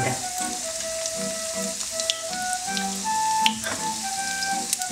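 Sesame-crusted chicken breast strips frying in hot oil in a frying pan: a steady sizzle with scattered sharp crackles and pops. Background music with held notes plays under it.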